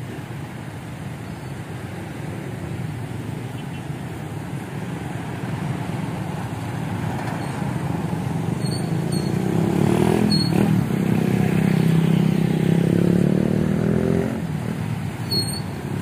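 Road traffic going by, with one vehicle's engine growing louder and passing close from about ten seconds in, then dropping away about fourteen seconds in.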